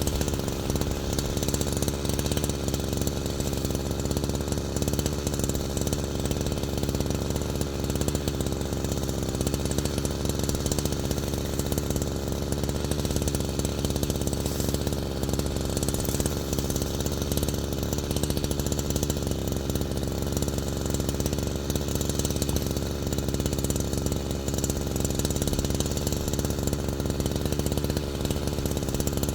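A small engine running steadily at one constant speed, with a fast, even pulsing beat.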